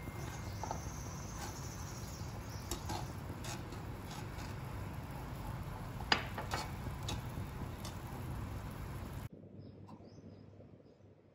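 Gravy simmering in a wok with a steady hiss while a utensil stirs it, knocking against the wok in a few light clicks, the sharpest about six seconds in. The sound stops abruptly about nine seconds in, leaving a much quieter background with faint ticks.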